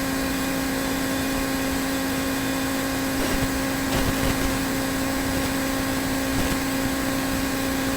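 Steady hiss with a constant low hum.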